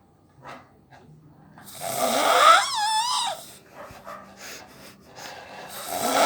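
A man snoring heavily after a bout of drinking: one long, loud snore with a wavering pitched whine in it about two seconds in, quieter breaths after it, and the next snore building near the end.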